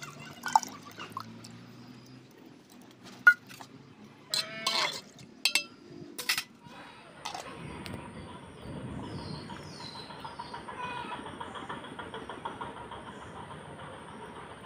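Wet mustard paste squeezed by hand through a metal strainer into a pot, with sharp clinks and splashes, and a short animal call about four and a half seconds in. Then a steady outdoor hiss with a few faint bird chirps.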